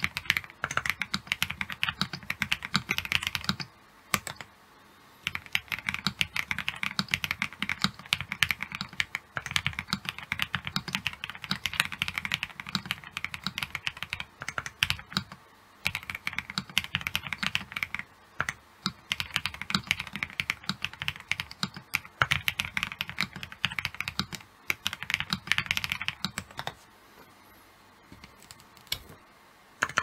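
Typing on a Velocifire CKW80 mechanical keyboard built with Lilac switches, a gasket-mounted FR4 plate, PE switch foam, Poron inserts, OWL V3 stabilizers and PBTfans keycaps. The keystrokes come in rapid runs, with a short pause about four seconds in and only a few scattered keystrokes near the end.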